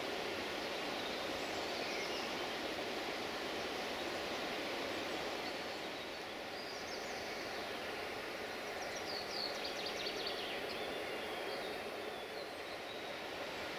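Steady rushing outdoor ambience, with short high bird chirps about two seconds in and again in a cluster around nine to ten seconds.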